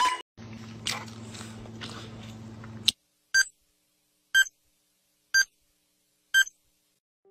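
Four short electronic beeps, one a second, like a timer counting down. Before them comes a steady low electrical hum that cuts off with a click.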